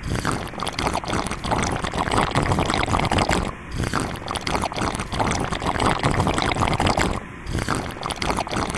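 A drink sucked up through a plastic straw from a plastic cup: three long slurps, broken by short pauses about three and a half and seven seconds in.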